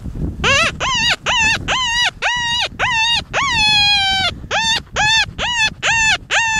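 Predator call for coyotes sounding a wailing distress cry, repeated quickly at about two and a half cries a second. Each cry sweeps up and then sags in pitch, and one longer drawn-out cry comes about halfway through.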